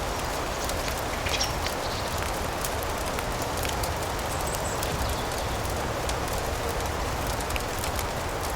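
A steady hiss of rain mixed with a fireplace crackling, small sharp pops scattered throughout and a few louder ones about a second in.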